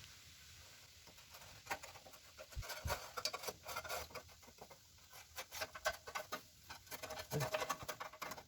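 Faint, irregular scratchy strokes and light clicks of a marking tool being drawn across sheet metal, tracing and marking a cut line on a car's core support.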